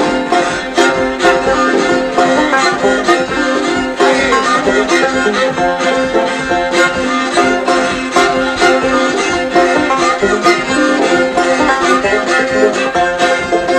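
Old-time fiddle and banjo playing an instrumental break between verses of a song. Quick, evenly picked banjo notes run under a bowed fiddle melody.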